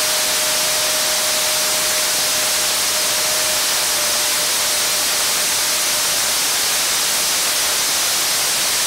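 TEI-TJ300 small turbojet missile engine running steadily on a test stand: a loud, even jet rush with a steady tone underneath that fades away over the first several seconds.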